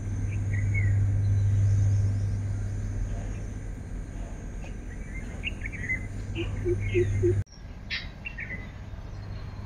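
Birds chirping and calling, with short high chirps scattered throughout, over a steady low hum that is loudest in the first couple of seconds. A run of four short low notes comes about seven seconds in, just before the sound breaks off abruptly and resumes with more chirps.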